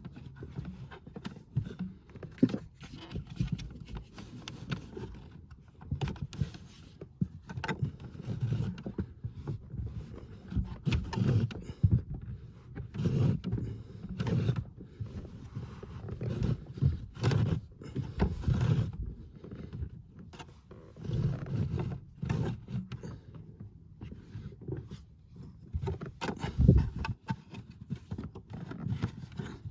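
Irregular knocking, rustling and scraping of hands feeding a speaker cable forward under a car's interior trim panels and carpet, with occasional louder bumps.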